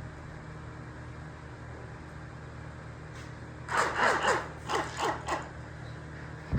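A dog barking five or six times in quick succession over a steady low hum, with a sharp thump right at the end.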